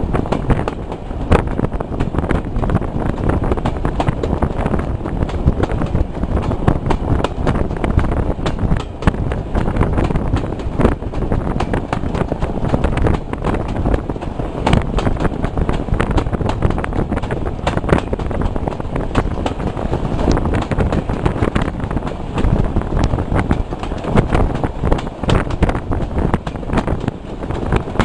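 Wind buffeting the microphone at an open carriage window, over the rumble of a moving train, with irregular clicks and knocks from the coaches' wheels on the track.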